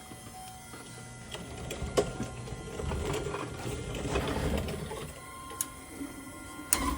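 The LM2 Duramax's electric fuel lift pump running to prime the fuel system after a filter change, a steady mechanical whir that grows louder about three seconds in. A few sharp clicks sound over it.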